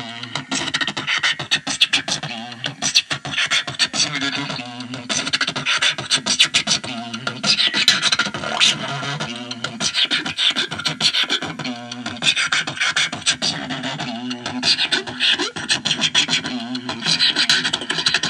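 Beatboxing: a fast, unbroken stream of drum-like mouth clicks over low vocal hums.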